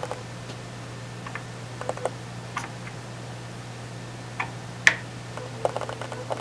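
Light, scattered plastic clicks and taps as clear LED backlight diffuser lenses are handled and pressed onto their LEDs on the TV's backlight, with one sharper click about five seconds in and a quick run of small clicks just after. A steady low hum runs underneath.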